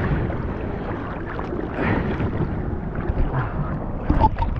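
Ocean water splashing and sloshing close to the camera, with wind on the microphone and a few sharper splashes about four seconds in.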